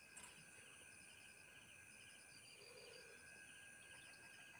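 Near silence with faint insects chirping in a steady, evenly pulsing chorus.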